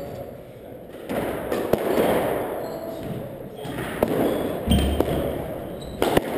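Squash rally: a squash ball struck by racquets and smacking off the walls in sharp knocks a second or so apart, the loudest and deepest a little past halfway.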